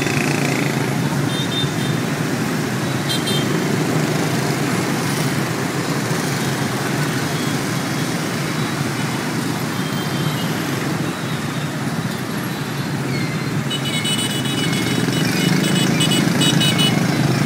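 Dense motorbike and car traffic passing close by: a steady rumble of many scooter engines and tyres, with a few short high-pitched tones near the end.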